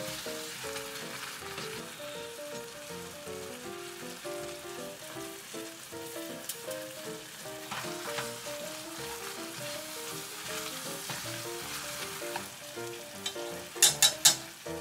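Ramen noodles, onions and green onions in spicy red sauce sizzling in a frying pan while chopsticks stir and toss them. A few sharp clacks near the end.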